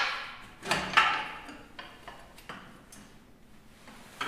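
Metal clanks and knocks from steel parts being handled on the ATV's front steering and suspension. Two ringing knocks come about a second in, followed by a few lighter clicks and another knock near the end.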